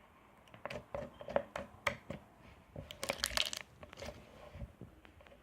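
Clear slime being squeezed and stretched by hand, giving irregular sharp pops and crackles as trapped air bubbles burst, with a quick run of pops about three seconds in.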